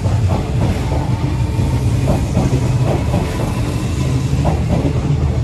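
A Hanshin 5700-series electric commuter train running along a station platform: a steady low rumble of wheels on rail with repeated clicks as the wheels cross the rail joints.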